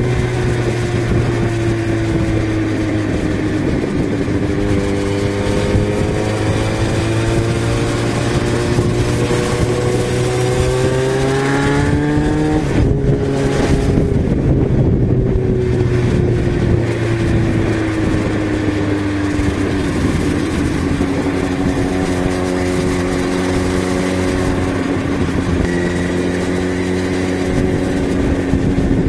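Yamaha XJ6's 600 cc inline-four engine under way on the road. Its note climbs steadily as the bike accelerates, drops sharply near the middle with a gear change, then sinks slowly and holds steady, with a rush of wind and road noise underneath.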